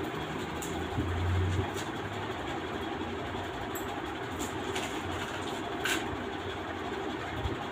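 Steady rushing background noise, over which an electric iron is pushed back and forth across cloth, with soft rustles and a few light knocks.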